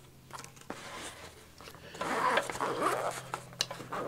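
YKK zipper on a nylon Maxpedition pouch being unzipped: a rasping run of the zipper starts about two seconds in, with a second short pull near the end.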